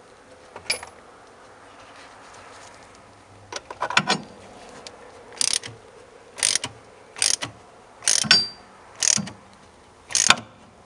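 Ratchet wrench clicking in short strokes, about one a second after a quiet start, as a spark plug thread repair insert is turned down into an aluminum cylinder head.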